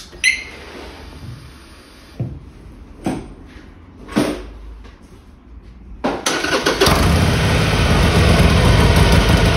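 A few short knocks and clicks, then about six seconds in the Harley-Davidson Sportster XL1200's air-cooled V-twin cranks briefly, catches and runs steadily. The engine is being run to warm the freshly filled oil for a dipstick level check.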